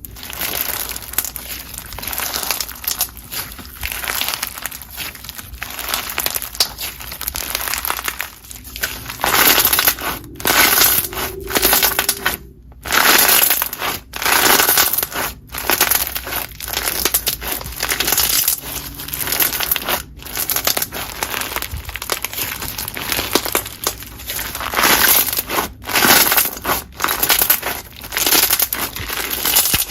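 Hands squeezing and poking slime, making dense crackling and crunching sounds with short breaks every few seconds.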